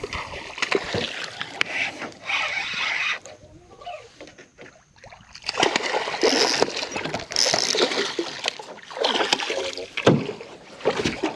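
Water splashing and sloshing around a small fishing skiff, with scattered knocks and clicks; it goes quieter for a couple of seconds midway, then picks up again.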